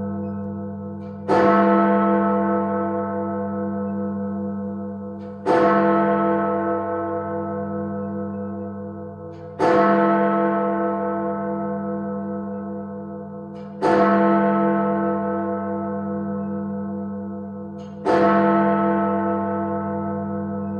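Big Ben, the great hour bell of the Elizabeth Tower clock, striking twelve: five strokes in this stretch, about four seconds apart, each with a sharp clang and a long ringing hum that dies away slowly.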